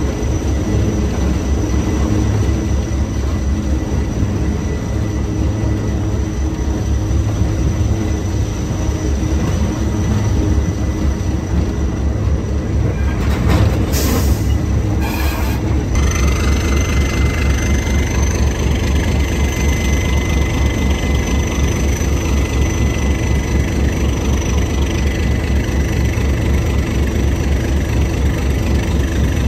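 ALCO RS-1 diesel locomotive's six-cylinder turbocharged engine running under way, with a fast, even exhaust beat. Two short hisses come about halfway through.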